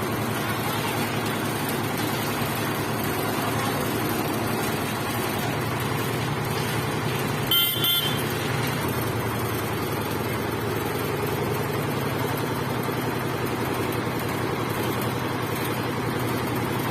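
Concrete mixer's engine running steadily. A vehicle horn toots briefly, twice in quick succession, about seven and a half seconds in.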